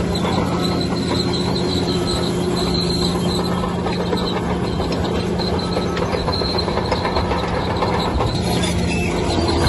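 Bulldozer running steadily under load, with a high squeal coming and going over the engine's low hum.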